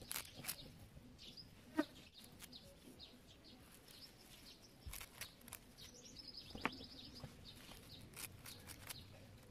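Faint outdoor bird chirping, with two louder short calls and a few brief sharp clicks as a small hooked blade snips through strap-like leaves.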